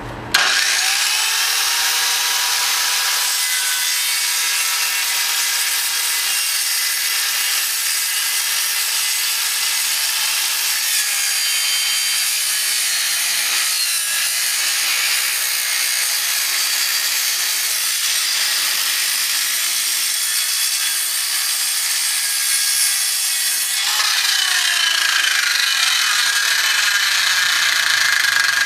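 Handheld Chicago Electric circular saw starting up and cutting through a wooden wine-barrel head: a steady motor whine over the rasp of the blade in the wood. About 24 seconds in, the whine dips in pitch and the cutting sound changes as the cut goes on.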